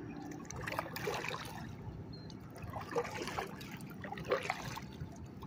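Water trickling and lapping around a kayak as the paddle is handled, with a few small splashes and drips.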